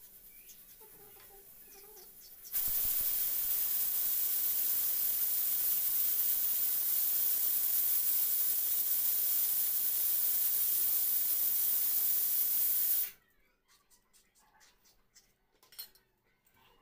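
A loud, steady hiss that starts suddenly a couple of seconds in, holds at an even level for about ten seconds and cuts off abruptly. Faint small clicks come before and after it.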